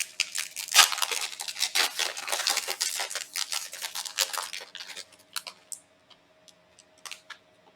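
Foil booster-pack wrapper of a Disney Lorcana pack being torn open and crinkled: dense crackling for about five seconds, then a few light clicks and taps as the cards are handled.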